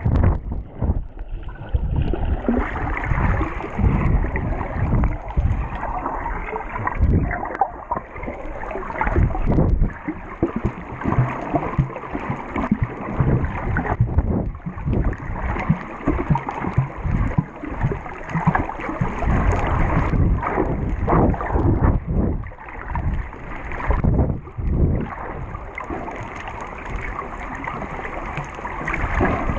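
Muffled water sloshing and bubbling, heard underwater, with irregular surges from swimmers kicking and the camera moving through the water.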